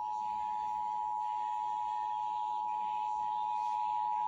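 Emergency Alert System attention signal: the steady two-tone alert of a monthly EAS test, received off an FM radio station, held at one unchanging pitch.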